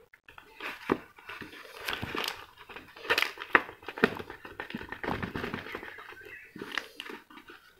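Hand-polishing of a clear-coated plastic model car body with coarse polishing compound: irregular scratchy rubbing on the plastic shell with scattered clicks and taps as it is handled, loudest around the middle.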